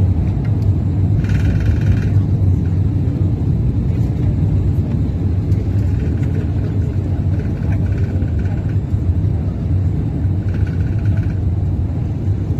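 Airbus A380 airliner's engines and airflow: a loud, steady low rumble with no break or change, as heard by a passenger on board.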